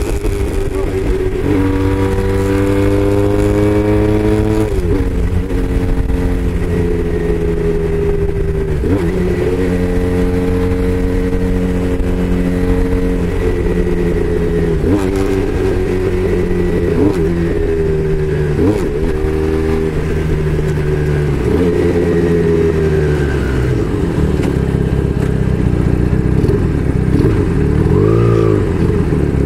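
Braaap Moto4 sportsbike engine pulling under acceleration while riding: its pitch climbs, then drops sharply at each gear change, several times over, before holding steadier. A low rush of wind and road noise runs underneath.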